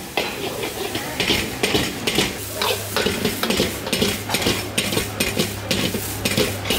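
Rice being stir-fried in a steel wok: a metal ladle and spatula repeatedly scrape and clank against the wok as the rice is tossed, over a steady sizzle. A steady low hum comes in about two and a half seconds in.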